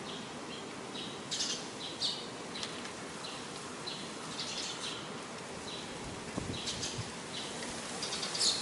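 Eurasian tree sparrows chirping, many short high calls scattered irregularly throughout, over a steady background hiss. A couple of soft low thuds come a little past the middle.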